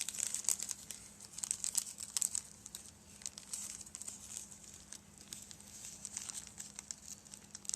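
Small plastic bag crinkling in irregular crackles as it is handled and opened to take out a small part.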